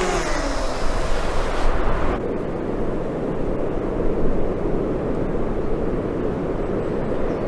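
FPV drone's motors whining, their pitch falling. About two seconds in, the high end cuts off abruptly and leaves a dense, dull, steady rumble.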